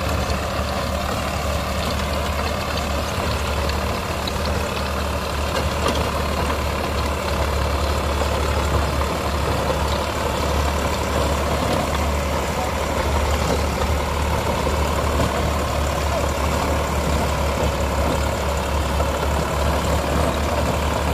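Deutz-Fahr tractor's diesel engine running steadily under load while it drives a rotary tiller through the dry field, a continuous low hum with an even rushing noise over it.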